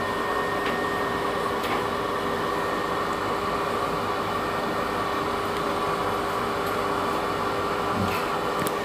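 Mercedes-Benz Sprinter City minibus standing at a stop with its diesel engine idling: a steady hum with a constant whine over it.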